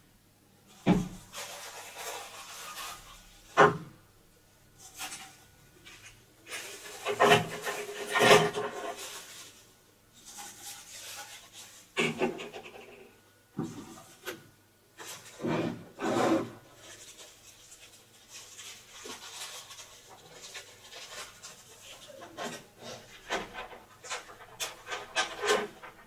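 Vacuum cleaner parts and their packaging being handled and unpacked from a plastic tank: irregular rustling and crinkling with scattered sharp knocks as pieces are set down on the table.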